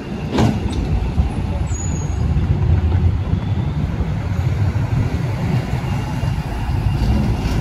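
Articulated low-floor tram rolling slowly past through a curve, a steady low rumble of wheels on rails. About half a second in there is one short, sharp sound that drops quickly in pitch.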